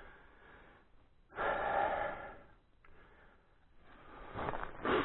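A person breathing close to the microphone: two long, noisy breaths, one about a second in and another near the end.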